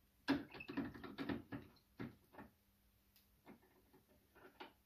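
Metal clicks, knocks and scrapes of hand tools as an adjustable wrench is worked on an adjustable hand reamer set through a bushing clamped in a vise. A quick cluster comes in the first two and a half seconds, then a few scattered clicks.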